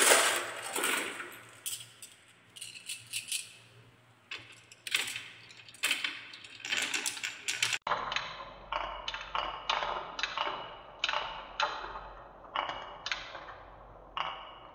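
Many marbles rolling and clattering down a wooden marble run, clicking against each other and the wooden rails as they pour into a wooden spiral bowl. The clicks come as a rapid rattle in bunches, about one or two bunches a second.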